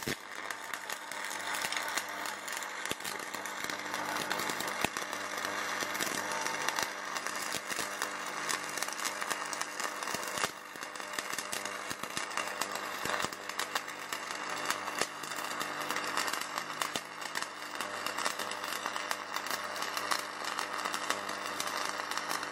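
Shielded metal arc (stick) welding: a covered electrode running at about 170–180 A on the second pass of a flat-position groove weld. The arc starts at once, then keeps up a steady crackle.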